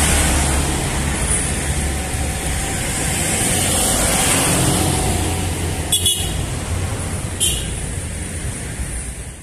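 Road traffic noise: a steady rumble of vehicle engines and tyres, with two short sharp sounds about six seconds in and a second and a half later, easing off toward the end.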